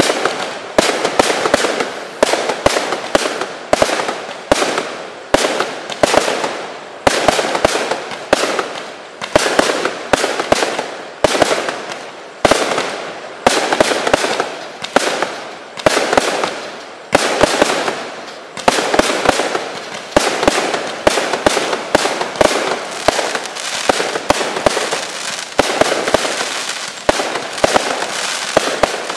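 Tank Buster 100-shot single-ignition fireworks cake firing a continuous volley: a sharp bang about once a second, each followed by a fading crackle as the shell breaks.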